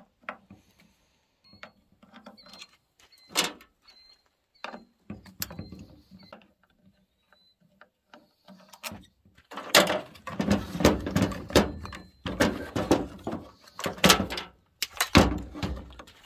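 Scattered clicks and light knocks of an Allen key working the bolts of a Husqvarna 572XP chainsaw's handlebar mount, then about six seconds of clattering plastic-and-metal knocks and scrapes as the saw is turned upright and its wrap handle is pulled off.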